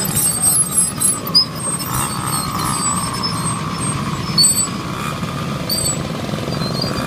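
Several small minibike engines running as the bikes pass slowly one after another, a steady low drone with a higher whine from about two to five seconds in.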